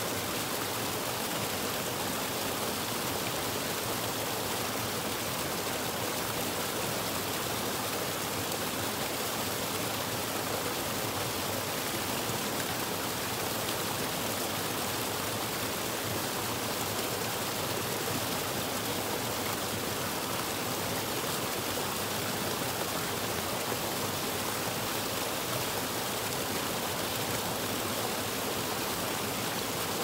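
A small waterfall pouring over rocks into a pool: a steady, unbroken rush of splashing water.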